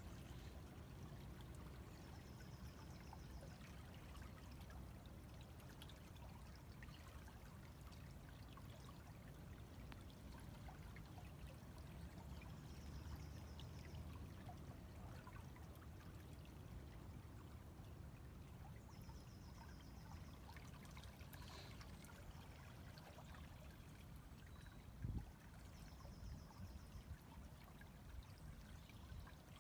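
River water running steadily and faintly. A bird's short, high, fast trill comes about four times, and near the end there is one brief low thump.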